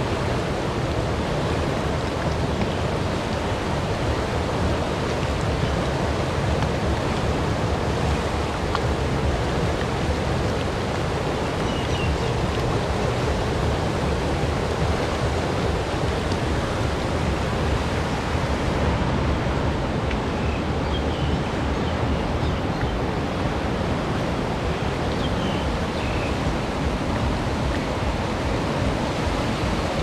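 Rushing water of a swollen, muddy river running fast over rapids: a steady, loud, even rush.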